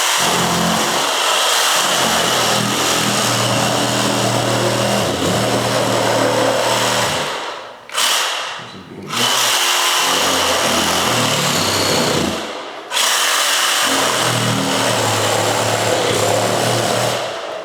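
A power tool running loudly in long stretches, stopping briefly about eight seconds in and again about thirteen seconds in.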